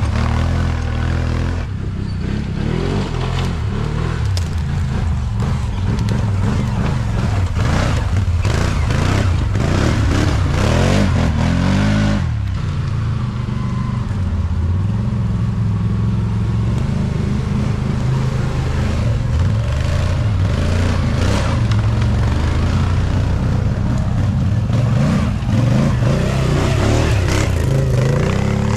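ATV engine running hard, its pitch rising and falling again and again as it is revved, with repeated knocks over it.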